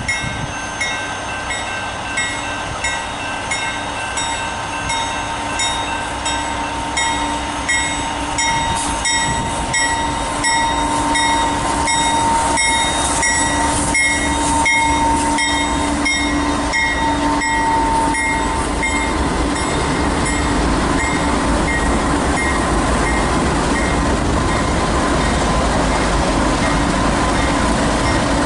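Railroad grade-crossing bell ringing in a steady rhythm as a freight train's GE diesel locomotives approach and pass close by, the engine and wheel noise growing louder and then holding steady, until it covers the bell.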